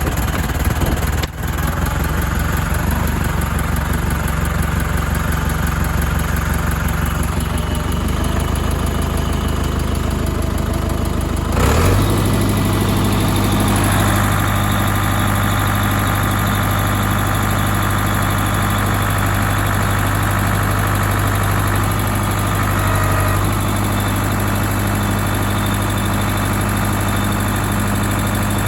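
Ford 6640 farm tractor's diesel engine running steadily, then speeding up about twelve seconds in and holding at the higher engine speed.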